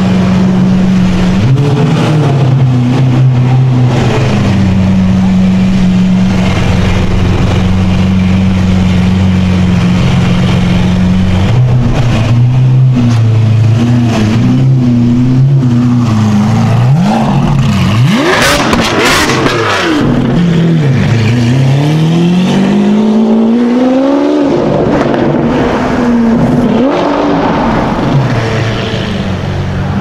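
Lamborghini Aventador SVJ's V12 idling steadily, then blipped and revved at low speed: a few quick revs past the middle, then a long climbing rev that drops off sharply.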